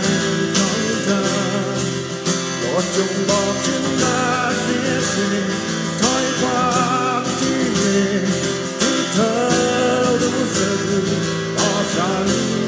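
Live band music: a female singer over guitar and keyboard, with a steady beat.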